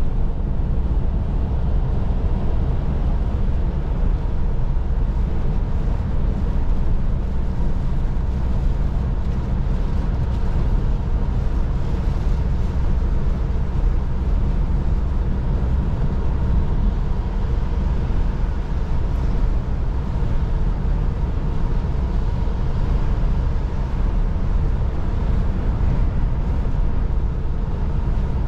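Steady low drone inside a Volvo lorry's cab at motorway speed: diesel engine and tyres running on a wet road.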